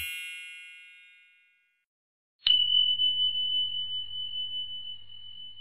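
A single bright ding sound effect, struck about two and a half seconds in and ringing on as one steady high tone that slowly fades. Before it, the last notes of the music die away into silence.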